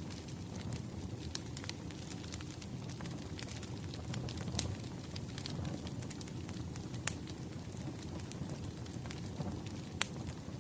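Wood fire crackling, with a steady low rumble and scattered small crackles, and a few louder pops.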